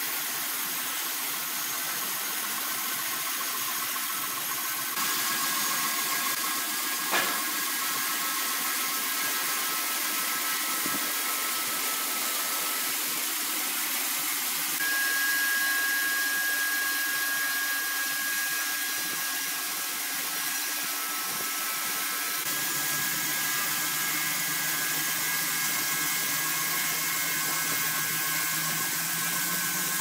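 Horizontal band sawmill cutting lengthwise through a squared log of red incense wood: a steady hiss of the blade in the wood with a thin high whine. The sound shifts abruptly twice, and there is one sharp click about seven seconds in.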